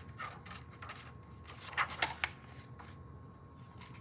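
Pages of a hardcover picture book being turned and handled by hand: a few short paper rustles and soft taps, the loudest cluster about two seconds in.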